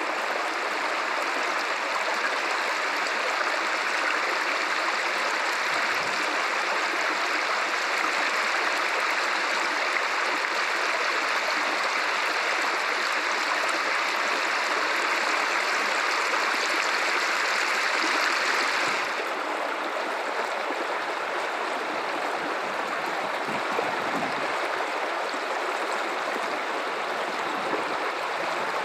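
Steady rushing of the Guadalupe River's running water. About two-thirds of the way through, the sound abruptly turns softer and duller.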